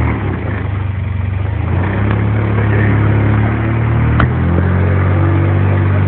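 Jeep engine running steadily as it drives, with one sharp knock about four seconds in.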